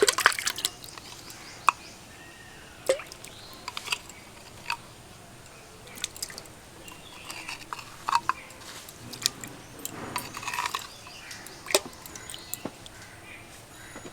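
Sour curd being added to a bucket of buttermilk: a loud clatter at the start, then scattered clicks and soft wet sounds of spoon and container against the bucket.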